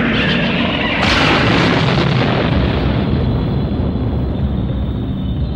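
Cartoon sound effect of a booming, rumbling power surge, swelling about a second in and then held steady, with dramatic music underneath.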